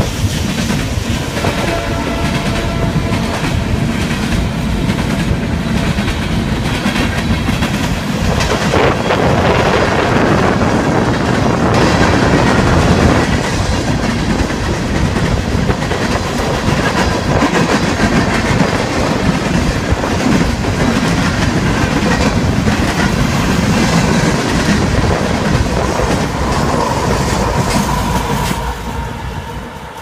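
Freight train of open-top hopper cars rolling past close by: a steady loud rumble of steel wheels with clickety-clack over the rail joints, easing off near the end.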